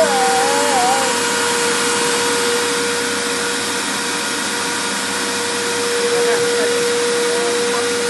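Canister vacuum cleaner running steadily: a constant motor whine over an even rushing hiss of air.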